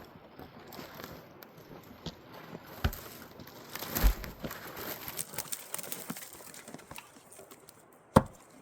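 A few scattered knocks and thuds, irregular, the sharpest one near the end.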